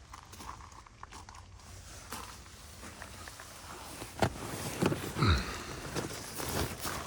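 Scattered knocks and scuffs over a low background: a few sharp clicks about four to five seconds in, with a short falling sound among them.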